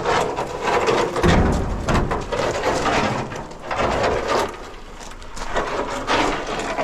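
Rain falling steadily, with a low rumble about a second in.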